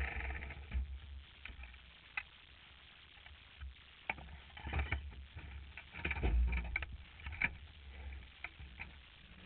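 A Formula Vee's air-cooled Volkswagen flat-four dies away in the first second as it is switched off. Then come scattered clicks, knocks and rustles from the driver moving about in the cockpit, thickest between about four and eight seconds in.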